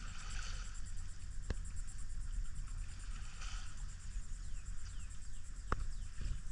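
Outdoor ambience: a steady low wind rumble on the microphone under a faint high insect trill, with two soft swishes about three seconds apart.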